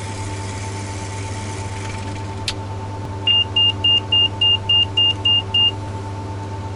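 Cessna Citation II cockpit aural warning system under test: over a steady electrical hum there is a click, then a run of about nine short, high-pitched beeps at roughly four a second.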